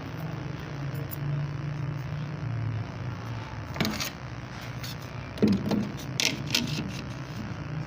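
A steady low machine hum, with several short metallic clinks and knocks: one about four seconds in and a cluster a second or two later.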